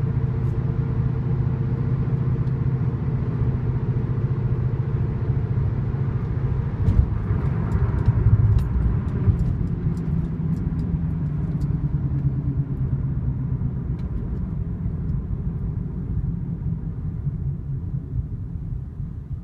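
2008 Honda Accord on the move, a steady low whirling drone with road noise. The owner cannot tell whether it is a wheel bearing, misalignment, an out-of-balance tire or unevenly worn tires. A few faint clicks come about halfway through, and the drone eases off near the end.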